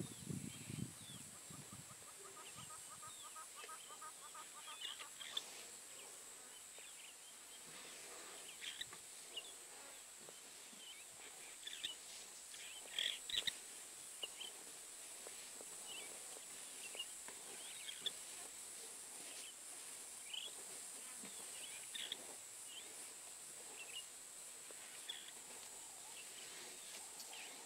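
Quiet bush ambience: scattered short bird chirps and calls over a steady high hiss, with a brief trill of evenly spaced notes a few seconds in.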